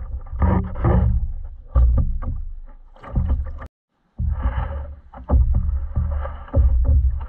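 Water slapping and sloshing against a plastic fishing kayak's hull, with repeated sharp knocks and bumps on the hull and rumble on the camera's microphone. The sound drops out completely for a moment just before four seconds in, then carries on.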